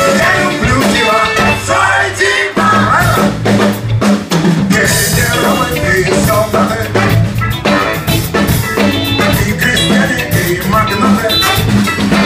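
Live band playing funk-soul music: drum kit and bass under a horn section of baritone saxophone, saxophone and trumpet.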